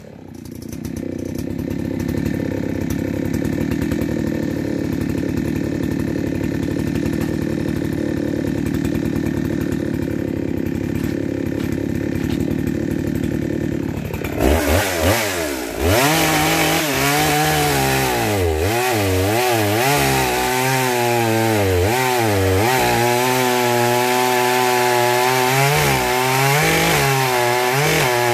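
Echo CS-800P 80cc two-stroke chainsaw idling steadily, then blipped a few times about 15 seconds in and run at high revs into a log. Its pitch dips and recovers over and over as the chain cuts through the wood.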